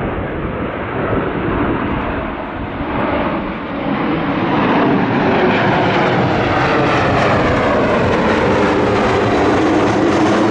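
Airliner engines, growing louder about four seconds in and then holding steady, with tones sliding in pitch as the aircraft passes.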